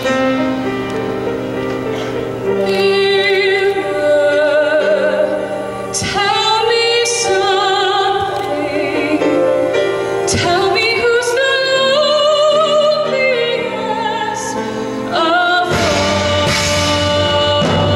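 A woman singing a solo line with vibrato into a stage microphone, over a live show-choir band heard through the PA. A heavier bass comes in near the end.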